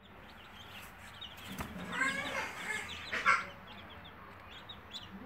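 Muscovy ducklings peeping: a steady run of short, high chirps. A louder call comes about two seconds in and another about a second later.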